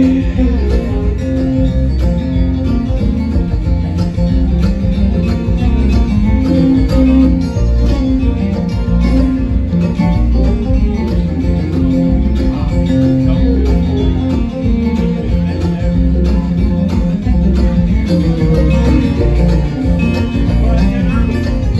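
Live bluegrass band playing an instrumental break: acoustic guitars, mandolin, fiddle and bass guitar, with picked guitar prominent, over a steady driving rhythm.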